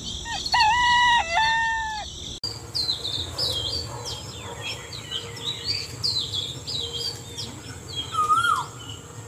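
A rooster crows once, then small birds chirp in many quick, high, falling notes.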